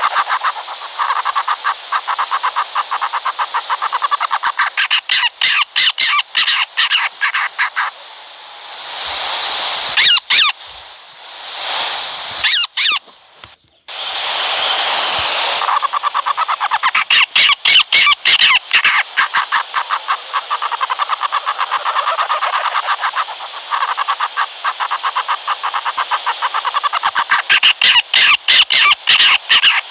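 Owl calling: long runs of rapid, harsh pulsed chattering, broken in the middle by a few seconds of rough, hissing screeches.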